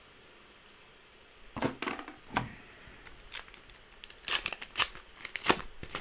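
Flesh and Blood trading cards and their booster pack being handled by hand: a string of about ten short, sharp strokes starting about one and a half seconds in, the loudest near the end.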